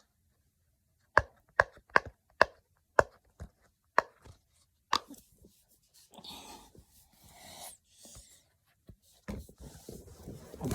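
A hand-held fidget toy being worked, giving about ten sharp clicks over four seconds, then softer rubbing and handling sounds.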